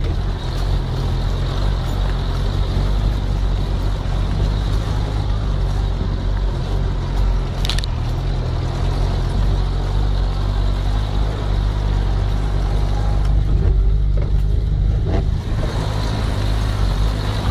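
4x4 engine running steadily at low speed as the vehicle crawls along a rough dirt track, a continuous low rumble, with one short sharp click about eight seconds in.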